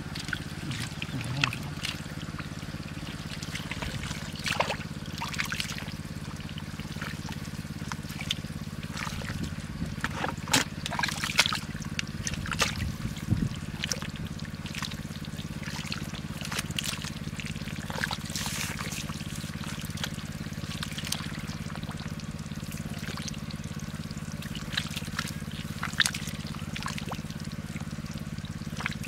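Water trickling and pouring, with scattered small splashes and knocks, over a steady low hum.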